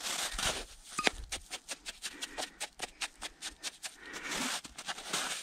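Hands scooping and packing crusty snow into a mug to melt for water: a quick, irregular run of small crunches and scrapes.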